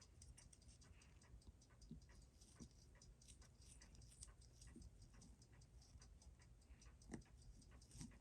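Faint, irregular small clicks of watchmaker's tools, such as tweezers and a screwdriver, on the parts of a chronograph movement being taken apart, with a slightly louder click about seven seconds in.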